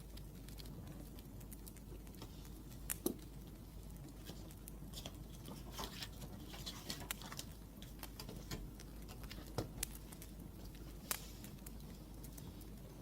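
Wood fire crackling, with scattered sharp pops and snaps, a few louder than the rest, over a soft steady low hiss.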